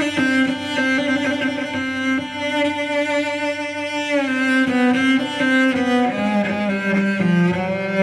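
Music with long held notes that glide down in pitch a couple of times.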